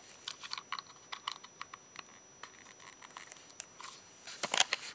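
Scattered small clicks and rustles of hands handling the homemade LED bicycle lamp and its battery pack in the dark, with a louder cluster of clicks about four and a half seconds in.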